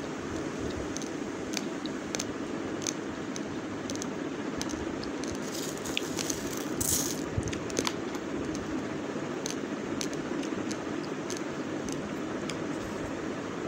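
Dry raw basmati rice being crunched between the teeth in short sharp cracks, roughly two a second, over a steady background hiss. Around six seconds in, a brief rattle of dry grains scraped and scooped from a steel plate.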